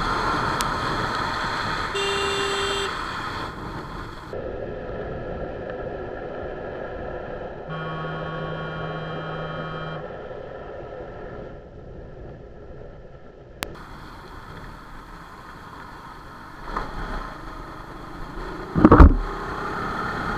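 Bajaj Pulsar NS200 motorcycle riding in rain, with steady wind and road noise on the helmet camera. Vehicle horns sound twice: a short honk about two seconds in and a longer one from about eight to ten seconds. Near the end comes a sudden loud burst of sound.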